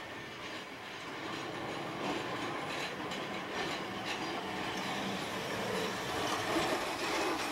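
Tosaden 600-series streetcar (car 615) running along street track toward the listener, growing louder as it approaches, with a few clacks from its wheels on the rails.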